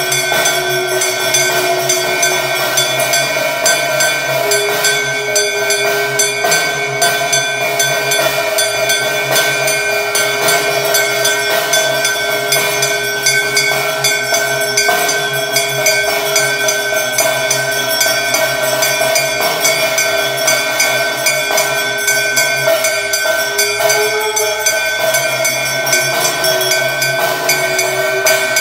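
Temple bells and percussion clanging without a break during a mangalarati (aarti) offering: rapid even strikes under sustained metallic ringing tones, with a held lower tone that drops out briefly near the start and again near the end.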